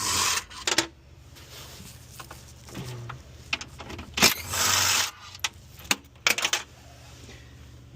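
Hand tools on the hybrid battery's mounting bolts: a few sharp metallic clicks and clanks, with two short rustling bursts near the start and about four seconds in.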